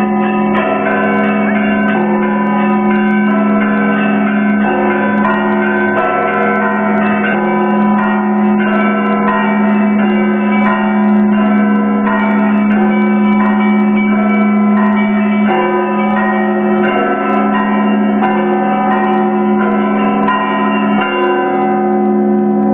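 Russian Orthodox monastery bells rung together in a continuous peal: many bells of different pitches struck in quick succession over the steady low ring of a large bell.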